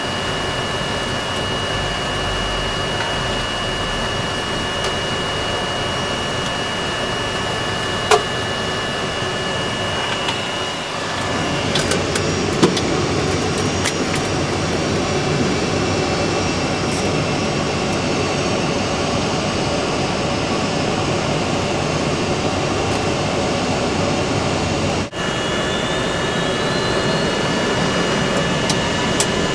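Boeing 747's jet engines running at taxi power, heard inside the cockpit as a steady, even roar with a thin high whine over it. A few sharp clicks come through, one about 8 seconds in and several a few seconds later.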